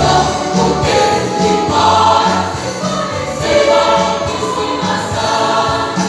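Choir singing in parts with instrumental accompaniment that carries a repeating bass line.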